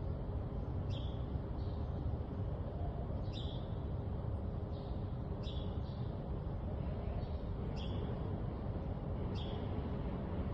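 A bird giving short, high chirps that fall in pitch, about one every two seconds, over a steady low rumble.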